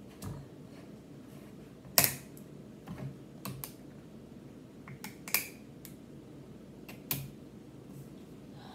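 Plastic screw cap being twisted off a Body Armor sports drink bottle: a loud sharp click about two seconds in, then scattered smaller clicks and cracks of the plastic cap and bottle.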